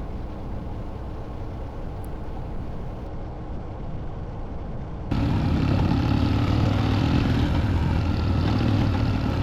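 Motorcycle engine and road noise while riding, a steady low hum; it jumps abruptly louder about five seconds in.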